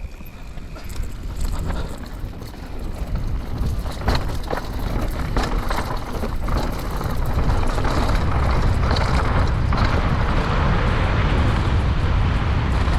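Mountain bike ridden down a dirt trail: wind buffets the microphone in a heavy rumble, with the tyres crunching over dirt and rock and sharp clicks and rattles from the bike. It grows louder over the first half as speed builds, then holds steady.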